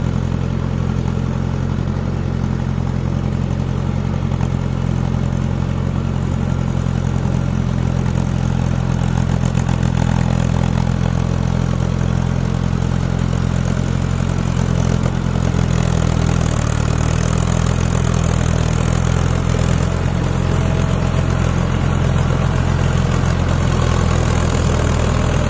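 Mahindra tractor's diesel engine running steadily under load as the tractor pushes through deep, flooded paddy-field mud, the engine note dropping a little about two-thirds of the way through.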